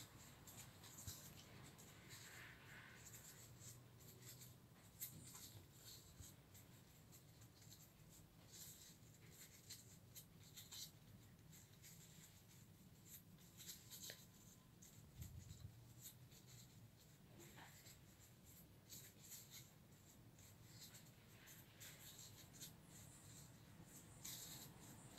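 Faint, irregular rustling and crinkling of crepe paper as it is twisted and folded by hand.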